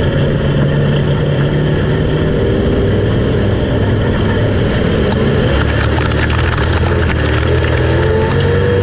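A dirt-track street stock race car's V8 engine, heard from inside the cockpit, running at low speed and then accelerating hard about five or six seconds in, its pitch rising. Rapid clicks and rattles come in as it speeds up.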